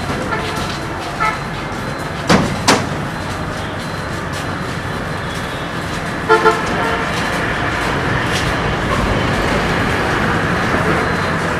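Busy bus-stand traffic: vehicles running, with two sharp bangs about two seconds in and a short double horn toot about six seconds in.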